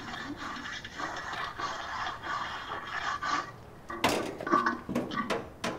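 Steady scrubbing and scraping on the metal parts of a gas barbecue being cleaned, for about three and a half seconds. It is followed by a run of sharp metal clanks and knocks as the grill parts are handled.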